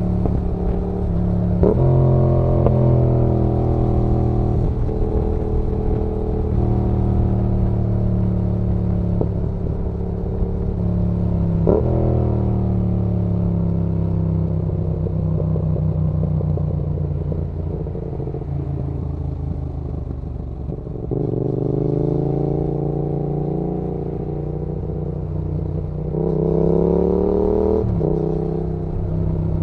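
Yamaha XSR700's 689 cc parallel-twin engine running under way. Its pitch jumps up sharply at gear changes about 2 and 12 seconds in, then sinks slowly as the bike slows on the engine. The revs climb again later and drop at a shift near the end.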